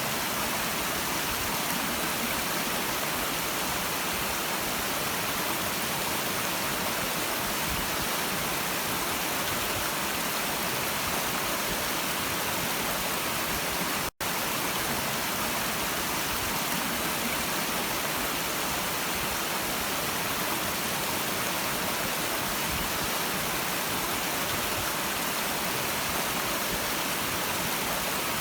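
Stream water running with a steady rushing noise, cutting out for an instant about halfway through.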